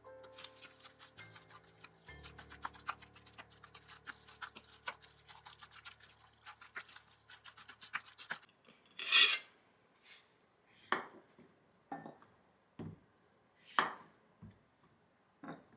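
Kitchen food-prep sounds: rapid small scraping and ticking of a utensil working against a bowl or board, with soft background music, for about eight seconds. Then come a handful of separate sharp clinks and knocks of utensils and dishes, the loudest a little past the middle.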